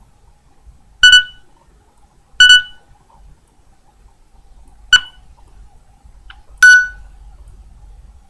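A Nokia N72 mobile phone's speaker giving four short, identical high beeps at uneven intervals.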